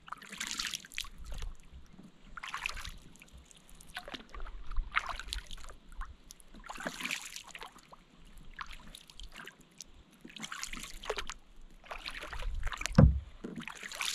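Double-bladed kayak paddle strokes: the blades dip and splash into lake water on alternate sides about every two seconds, with water dripping off the raised blade. A low thump near the end.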